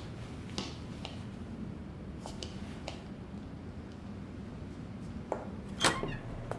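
Steady low room noise with scattered light clicks and taps, about half a dozen, the sharpest a little before the end.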